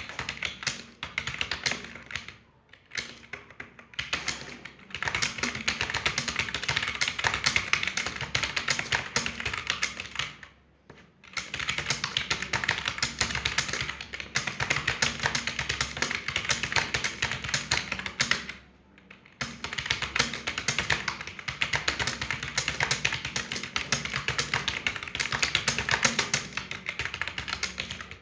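Fast, continuous typing on a computer keyboard during a timed typing test: rapid key clicks with brief pauses about 3, 4, 11 and 19 seconds in.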